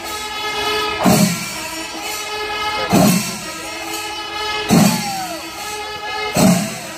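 Music: sustained pitched tones held over a heavy drum beat that falls about every two seconds.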